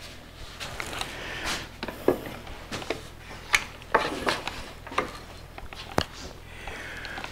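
Wooden handling noise: an irregular run of sharp clicks and knocks with some rubbing, as thin wood strips and a dovetailed drawer box are picked up, turned and set down on a wooden workbench.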